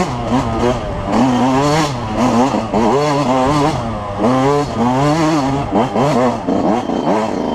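2005 Yamaha YZ125's two-stroke single-cylinder engine revving hard under race riding, its pitch climbing and dropping again many times as the throttle is worked.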